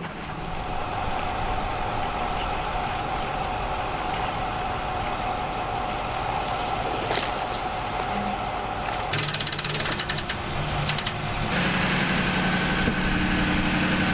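Mercury Verado 225 four-stroke outboard motors running. A steady whine comes first; about nine seconds in there is a rattling clatter for a couple of seconds, then the motors settle into a steady hum.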